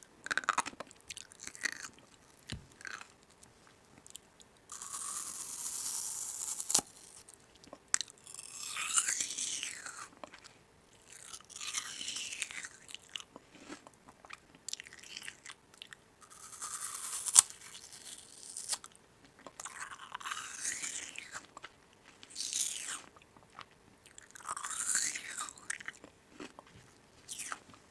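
Crunching and chewing in irregular bursts a second or two long, every couple of seconds, with near-quiet gaps between.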